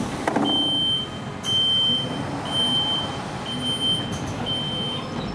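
Electronic warning beeper sounding a high steady tone about once a second, five half-second beeps, over a low steady rumble.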